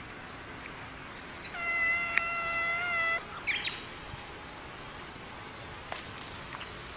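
Cat giving one long, steady yowl lasting about a second and a half, followed by a few short, faint high-pitched chirps.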